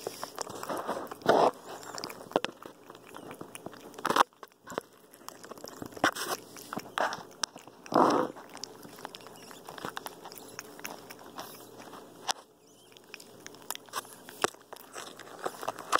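Capuchin monkey handling and biting a toy right against the microphone: irregular clicks and crunches, with a few louder short scuffs about a second, four, six and eight seconds in.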